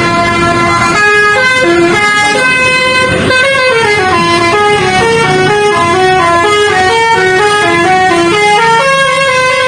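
Bus 'telolet' Basuri multi-tone horn playing a tune: a quick run of stepped notes going up and down, ending on one steady held chord about nine seconds in.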